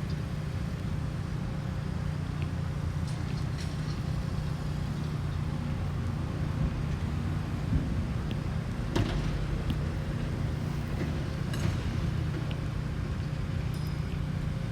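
Steady low rumble of city traffic, with a few short clicks and ticks over it.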